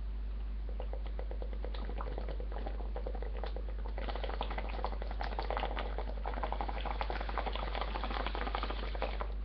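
Water bubbling in a bong as a hit is drawn through it: faint at first, much louder from about four seconds in, then stopping abruptly near the end.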